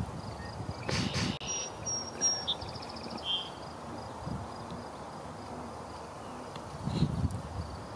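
Insects chirping in a steady high pulsing drone, with a brief rustle of handling noise about a second in.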